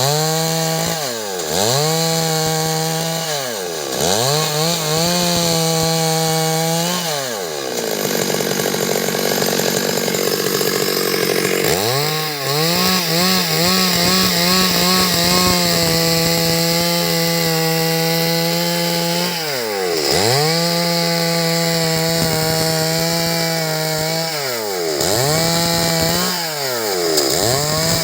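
Stihl MS 382 two-stroke chainsaw running at high revs while cutting wood. Its engine speed drops sharply and recovers several times, and for a few seconds about a third of the way in the steady note gives way to a rougher, noisier sound.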